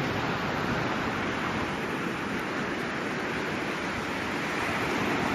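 Sea surf washing steadily onto the beach, with some wind on the microphone.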